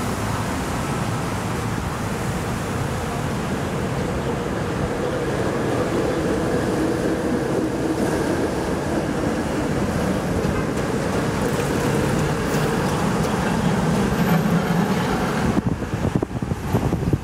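Steady road traffic noise with the hum of passing vehicle engines through the middle. Near the end, wind starts buffeting the microphone in uneven gusts.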